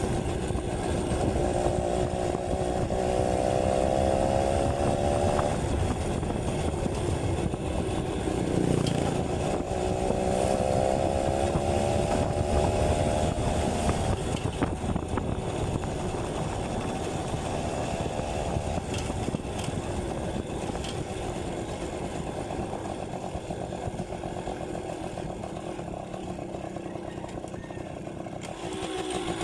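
Yamaha V50's small two-stroke engine under way on a ride: it revs up twice with a break between, as if shifting up, then runs lower and steadier at cruise.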